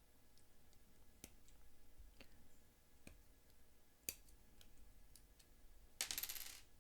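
Small plastic model-kit parts being handled, with faint scattered clicks and one sharper click. Near the end comes a short rattling clatter of many quick clicks.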